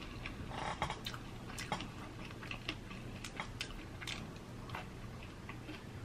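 Close-up eating of a Flamin' Hot Cheetos-crusted fried chicken wing: biting and chewing, with scattered sharp little crackles as the wing is pulled apart and eaten.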